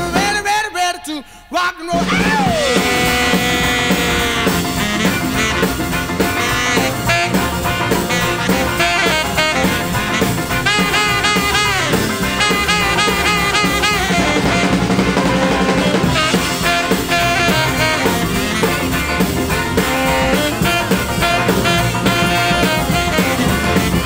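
Background music with a steady beat. It drops away briefly about a second in, then carries on as an instrumental passage.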